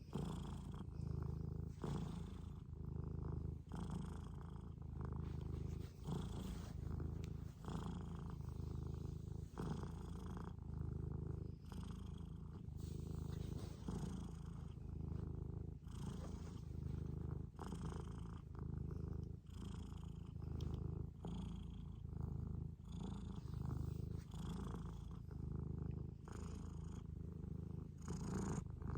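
Scottish Fold cat purring close up, a low steady rumble that swells and eases with each breath, about once every two seconds.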